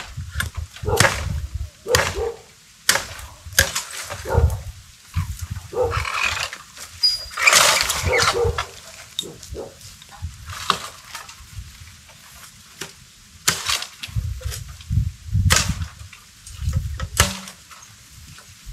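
Nứa bamboo being chopped with a blade: sharp irregular chopping strikes with heavy thuds, about one a second at first and then sparser, with a longer rustling crash of stems and leaves about six to eight seconds in.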